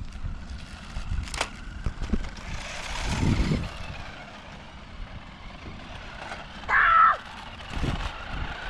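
Small electric motor of a toy remote-control car whining faintly as it drives off along the asphalt. About seven seconds in there is a brief high-pitched cry, the loudest sound here.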